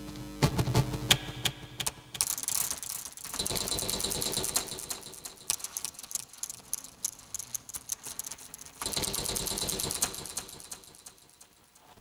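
Rotary telephone dial being turned and running back, its clicks and ratcheting picked up from inside by a contact microphone, with knocks from hands handling the phone's plastic case; the rattling thickens twice, a couple of seconds in and again near the end, then fades.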